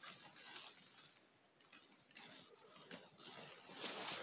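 Near silence: quiet indoor room tone with faint scattered ticks and taps, which get louder and more frequent near the end.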